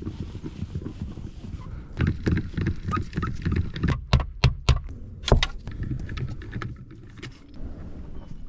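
A run of clicks and knocks from hands and tools working on a pickup truck's windshield surround as the windshield removal begins. The loudest few sharp knocks come in the middle.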